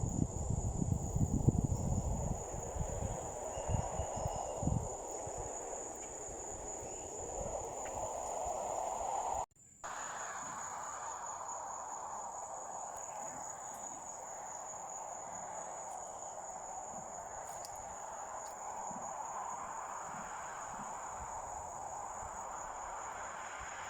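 Insects trilling in one steady high-pitched note over a soft rushing hiss, with low rumbling in the first few seconds. The sound drops out briefly about nine and a half seconds in, then the trill resumes unchanged.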